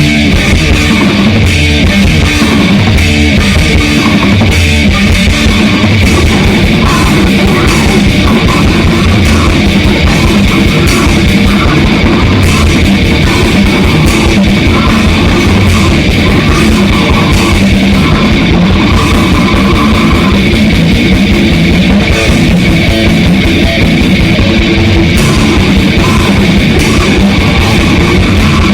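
Grindcore/death metal band playing loud in rehearsal: distorted electric guitars over a drum kit pounding out fast strikes, with no let-up.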